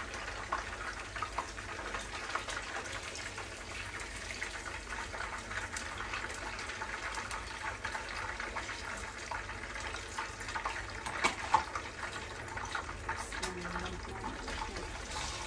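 Hot oil sizzling and crackling steadily in a frying pan as meatballs, potatoes and peppers fry. A couple of sharp metal clinks, a spoon against the pan, stand out about eleven seconds in.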